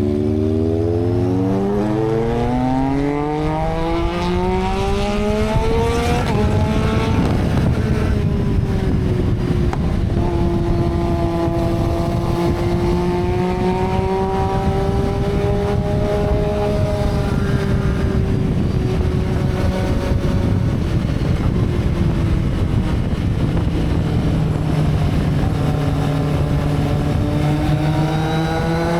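Motorcycle engine pulling hard for the first six seconds, its note rising steadily, then running at a steady pace with the note drifting gently up and down, and climbing again near the end, over a constant rushing noise.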